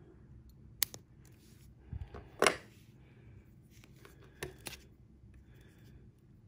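Small side-cutter pliers trimming the tag end of monofilament fishing line at a hook eye, with the rustle of hands handling hook and line. A few sharp clicks, the loudest about two and a half seconds in, with two lighter clicks near four and a half seconds.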